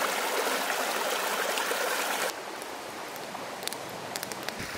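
Shallow mountain stream running over stones, a steady rush of water. About two seconds in it cuts off suddenly to a quieter background with a few faint crackles from a campfire.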